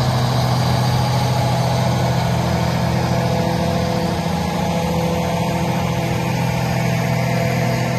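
Heavy diesel engine running at a steady speed, a constant low hum with no change in pitch.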